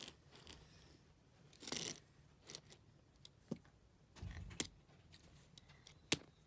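Small plastic fidget-toy pieces being handled and fitted together: scattered light clicks and taps, a short rustle just before two seconds in, and a dull bump just past four seconds.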